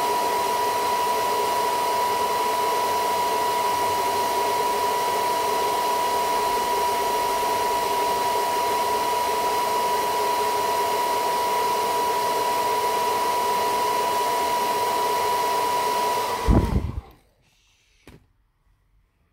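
Handheld hair dryer blowing steadily with a high whine, heating a smartphone's glass back to soften its adhesive. It is switched off near the end and the sound stops abruptly.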